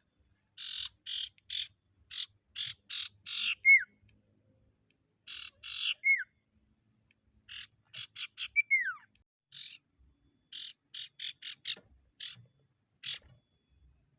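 Sirtu (cipoh) songbird calling in runs of quick harsh rasping notes. Three of the runs end in a sharp, falling whistled note, followed by more scattered rasping chatter.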